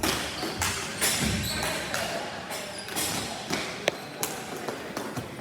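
Ball hockey play: a scatter of sharp knocks and thuds from sticks and ball, one especially sharp about four seconds in, over a noisy background.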